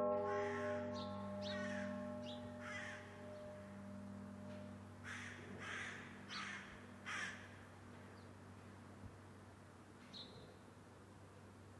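A church bell's ring slowly dying away after a stroke, its low hum lingering. Over it a bird calls several times, with four louder calls about two-thirds of a second apart a little past the middle.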